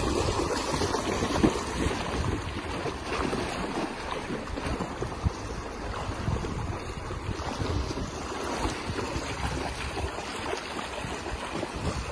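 Shallow river water rushing steadily over a wide riffle, with splashing from a person and a Siberian husky wading through it. Wind rumbles on the microphone.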